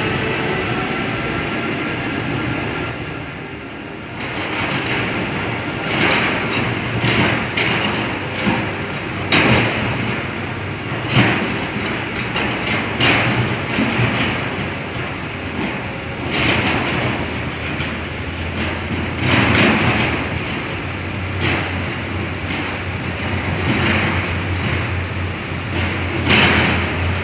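SANY heavy construction machinery working: an engine running steadily under load, with a whine gliding in pitch near the start, then repeated irregular clanks and knocks.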